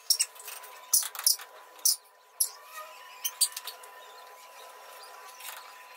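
Sharp metallic clicks, clinks and scrapes of hands and tools working on a tractor's front axle steering linkage, most of them in the first three and a half seconds. A faint steady high tone runs underneath.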